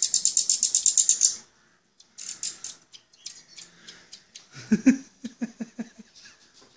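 Common nightingale fledglings begging while being hand-fed: fast, high-pitched chattering calls, loudest in the first second and a half and again briefly around two seconds in. Around five seconds in, a person's voice makes a short run of quick low sounds.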